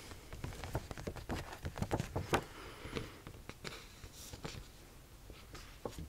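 A paper fact-file card handled and tapped close to the microphone: a run of soft, irregular taps and clicks.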